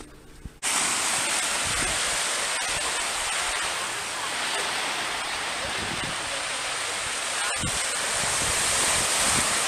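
Small waves washing on a sandy beach: a steady rushing noise that starts abruptly about half a second in.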